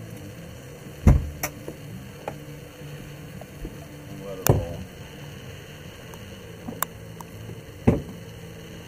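Triple Suzuki 300 outboard engines idling with a low steady hum, broken by three sharp knocks about three and a half seconds apart and a few fainter clicks in between.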